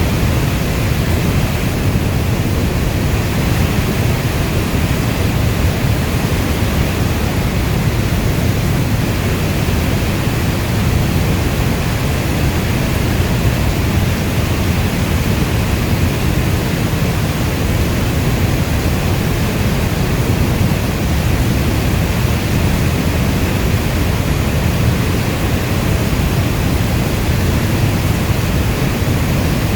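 Heavy rain falling steadily: a dense, even rushing noise weighted toward the low end, unchanging throughout.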